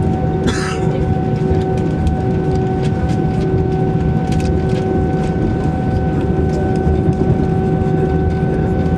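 Airbus A321 cabin noise while taxiing, heard from a seat over the wing: the jet engines at idle give a steady whine over a low rumble, with light clicks and rattles throughout.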